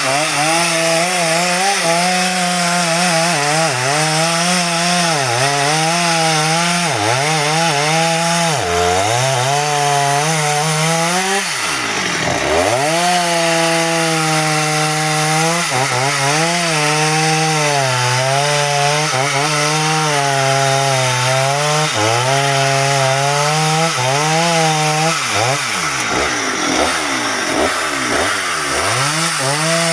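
Two-stroke chainsaw running at high revs while cutting into nutmeg wood, its pitch sagging and recovering as the chain bites. The revs drop deeply and climb back about twelve seconds in, and again several times near the end.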